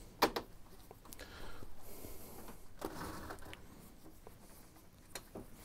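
Faint handling sounds of screws being worked out of the printer's plastic case: a sharp click just after the start, then a soft rasping stretch for a couple of seconds, and a few small ticks near the end.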